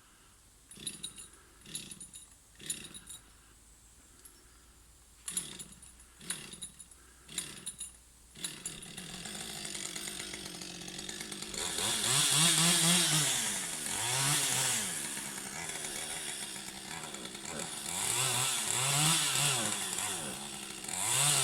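Chainsaw pull-started with about six short tugs on the starter cord before the engine catches, about eight seconds in. It then runs on, revved up and down several times.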